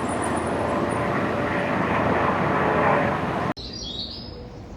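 Loud, steady rushing noise of a train at a station platform, swelling slightly before it cuts off abruptly about three and a half seconds in. Quieter station ambience with a few brief high chirps follows.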